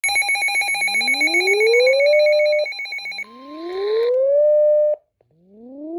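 Electronic alert tones: a rapid, high-pitched ringing trill sounds for about the first three seconds while a rising whoop sweeps up underneath it. Two more whoops follow, each climbing, holding briefly and cutting off, the last one still rising near the end.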